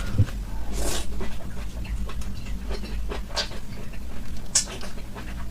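Close-miked eating of raw scallop: wet chewing and mouth clicks, with a slurping suck about a second in.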